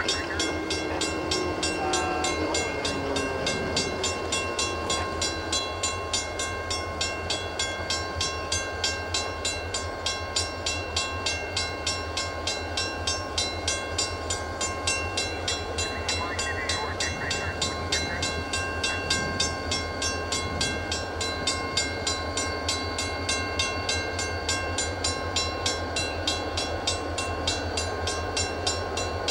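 Canadian Pacific freight train's lashed-up diesel locomotives approaching, engines running with a steady low drone and a regular pulse about twice a second.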